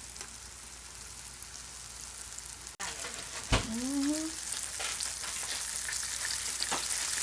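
Batter-coated mushrooms frying in hot oil: a steady crackling sizzle. About halfway through there is a thump and a short rising voice-like sound.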